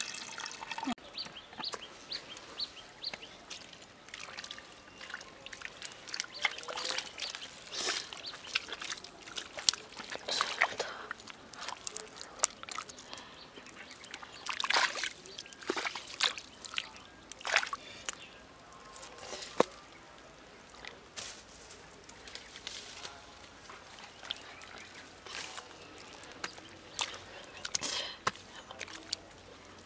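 Hands working in wet mud and muddy water: irregular squelches, slaps and small splashes.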